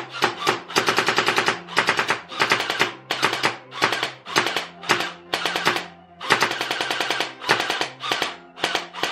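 Unlocx electric gel blaster firing on full auto in loud bursts of rapid shots, a dozen or so separated by short pauses, some bursts lasting about a second. It is shooting off the last gel beads in its hopper.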